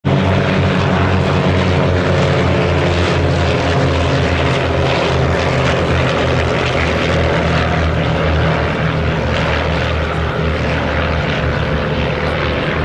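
Formation of Vans RV-8 propeller aircraft flying with their 180 hp piston engines running, a steady, loud engine drone with a strong low hum.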